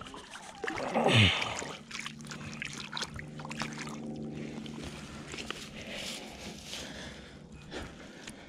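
Water sloshing and splashing as a channel catfish is rinsed off in the shallows. About a second in there is a short sound falling steeply in pitch, and a steady low hum runs from about two seconds to seven.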